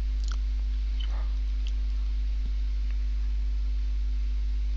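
Steady low electrical hum with faint hiss, broken only by a few faint ticks.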